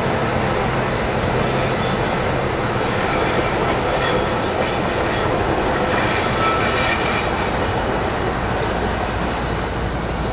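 Passenger train running on the rails: a steady rolling noise, with faint squealing from the wheels on the curve.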